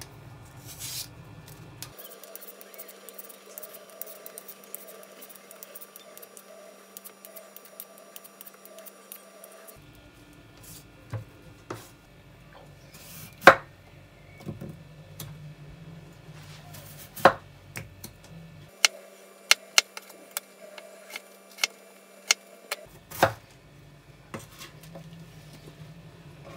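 A few scraping strokes of a vegetable peeler on a potato near the start, then a kitchen knife cutting raw potatoes on a wooden cutting board: a dozen or so sharp knocks of the blade on the board, irregularly spaced, over the second half.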